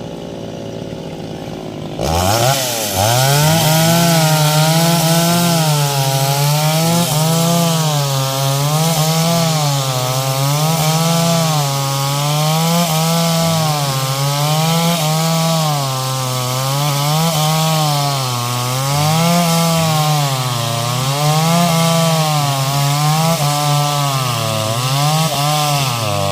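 Stihl MS 381 two-stroke chainsaw running quietly, then opened up about two seconds in and cutting wood. Under load its engine pitch rises and falls about once a second as the chain bogs and recovers in the cut.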